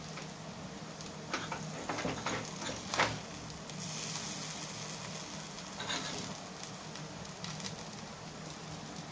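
Raw banana slices shallow-frying in oil in a pan: a steady sizzle, broken by a few light taps and scrapes of a steel spoon on the pan as the slices are turned over, the sharpest about three seconds in.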